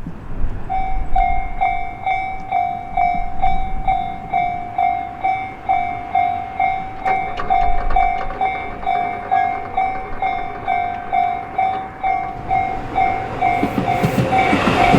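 Japanese level-crossing warning bell ringing a steady repeating ding, about two strikes a second. Near the end the rumble of an approaching train rises beneath it.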